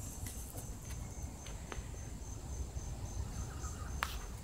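Insects chirping outdoors: a high-pitched tone pulsing rapidly and evenly without a break, over a low rumble, with a sharp click near the end.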